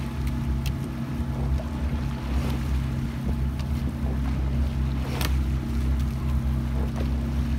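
Steady hum of a coaching launch's outboard motor running alongside a rowing quad, with wind on the microphone. Sharp clicks come twice, about 2.7 seconds apart, in time with the crew's stroke rate of 22 a minute: the oars clunking in the oarlocks at each stroke.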